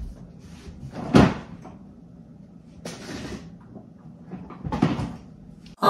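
Kitchen refrigerator door being opened and shut while a mixing bowl is put inside: a sharp knock about a second in, then two softer knocks and shuffles later.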